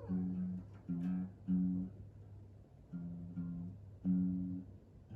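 Background music: a slow guitar melody of single plucked notes, each held for about half a second.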